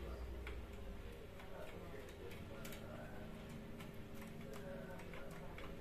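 Faint, irregular small clicks of a screwdriver working the screw terminals of a 12 V 10 A power supply as wires are fastened to it.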